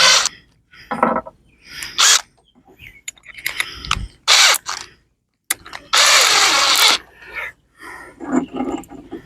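Cordless drill driving screws into the wooden corners of a beehive deep box, in several short bursts and one longer run about six seconds in.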